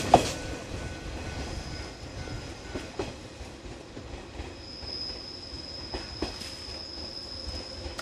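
A train running past and fading away: a last clack over the rail joints at the start dies down to a low rumble with a few scattered knocks. A thin, high steady tone comes in about halfway.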